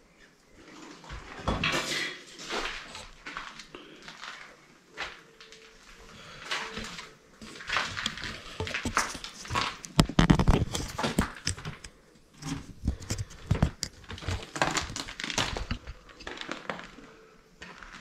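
Footsteps crunching and scuffing over a debris-strewn floor, with irregular knocks and scrapes and a louder thump about ten seconds in.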